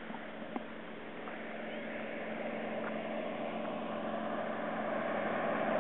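Nemesis NXT racing plane's piston engine droning as it comes in to land, growing steadily louder as it approaches.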